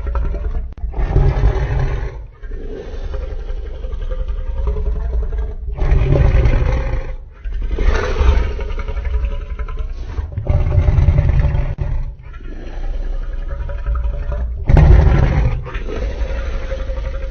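Custom-made monster roars and growls for a fictional hybrid dinosaur. They come as a string of loud, deep calls of one to three seconds each, cut apart by short breaks.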